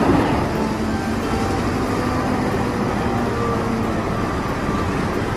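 Caterpillar 992G wheel loader's diesel engine running steadily under load as it tips its bucket into a dump truck: a dense, even machine noise with a heavy low end.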